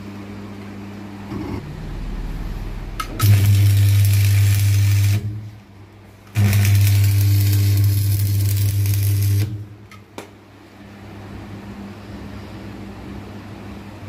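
Stick (arc) welding from a 450-amp oil-cooled transformer welding machine. Two long bursts of arc crackle, about two and three seconds long, come about three and six seconds in, and the machine's hum grows loud while the arc is struck. Between them the machine hums steadily at idle.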